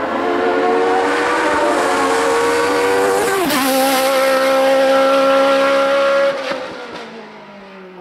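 Sports-prototype race car's engine at high revs as it passes close and pulls away, with the pitch climbing. About three seconds in, a gear change drops the pitch sharply, and it settles lower. It then holds steady until the sound falls away suddenly about six seconds in.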